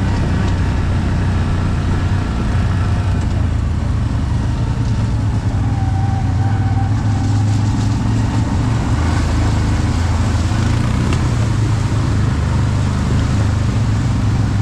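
ATV engine running steadily under way, a constant low hum. From about halfway a hiss of water splashing joins it as the ATVs wade through a shallow river.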